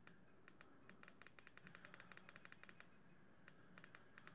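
Faint rapid clicking from scrolling down a long on-screen menu list: a few spaced clicks, then a quick run of about ten a second through the middle, then a few more near the end.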